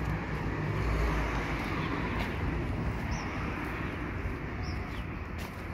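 City street traffic: a motor vehicle's engine rumble is heaviest about a second in, then the traffic noise eases off slowly. Two short high chirps sound through it in the second half.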